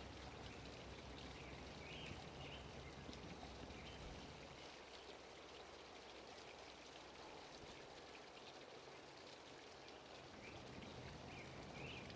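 Near silence: faint outdoor background hiss with a few brief, faint high chirps.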